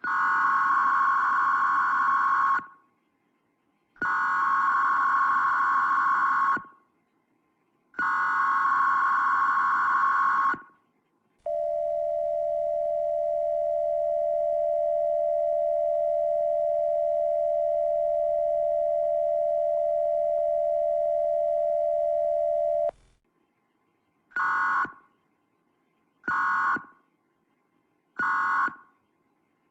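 American Emergency Alert System tones slowed to 0.7x speed. Three long screeching data bursts of the header come first. Then the two-tone attention signal holds steady for about eleven seconds, lowered in pitch, and three short end-of-message bursts follow near the end.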